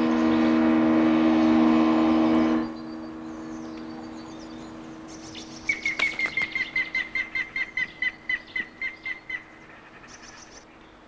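A small boat's outboard motor runs steadily and cuts off abruptly after about two and a half seconds. About three seconds later a white-tailed eagle gives a rapid series of high, evenly spaced calls, about five a second, lasting nearly four seconds.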